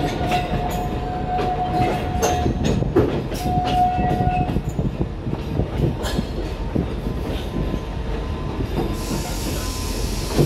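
Narrow-gauge Alishan Forest Railway train rolling slowly through a rail yard, heard from inside the carriage: a steady rumble with wheels clacking over rail joints and points. A steady wheel squeal sounds twice in the first half, and a short hiss comes near the end.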